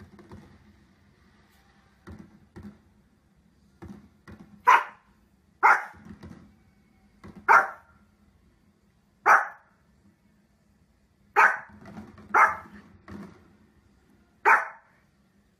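Small fluffy dog barking: a few faint sounds, then seven sharp, loud barks spaced irregularly about one to two seconds apart.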